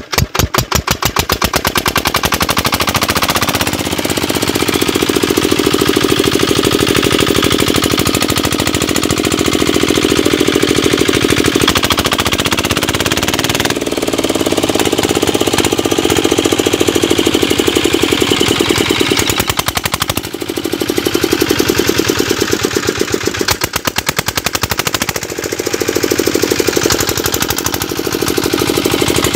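Kirloskar 5 hp single-cylinder diesel pumpset engine running just after starting, with a rapid, even knock of its firing strokes. Its speed shifts a few times while the engine's controls are worked, dipping briefly about 12 s, 20 s and 25 s in.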